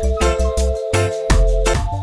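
Background music with a steady, bouncy beat and held melodic tones.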